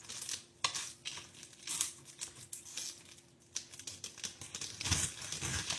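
A fresh pineapple being cut with a knife and handled: crisp crackling and tearing of its tough skin and spiky leaves in short strokes, growing firmer and more frequent near the end.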